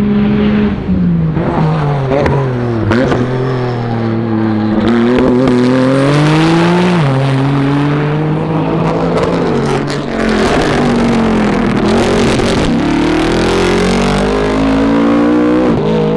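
Time-attack race car engines at full throttle as cars pass one after another, the engine note falling as a car goes by and climbing again under acceleration. About seven seconds in, the pitch drops sharply at a gear change.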